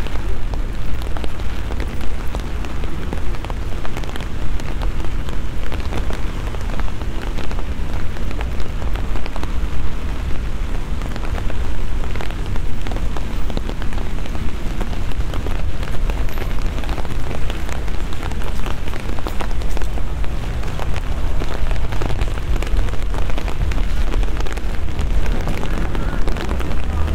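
Rain falling on wet paving stones and cobbles: a dense, steady patter of drops over a constant low rumble.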